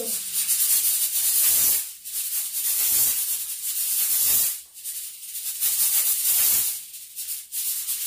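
Steam hissing steadily from a pressure cooker on a gas stove, coming in surges of a couple of seconds with short dips between them.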